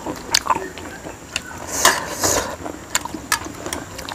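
Close-miked chewing of noodles and momo dumplings: a run of short sharp mouth clicks, with two louder noisy smacks about two seconds in.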